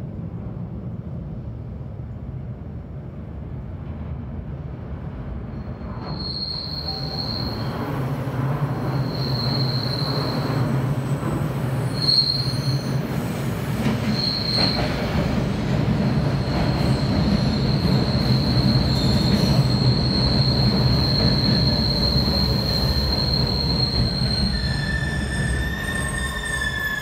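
MBTA Red Line subway train pulling into an underground station: a low rumble builds as it approaches, with a high wheel squeal, first in short bursts and then held steady as the cars run along the platform. The squeal stops near the end, and a few steadier whining tones come in as the train slows.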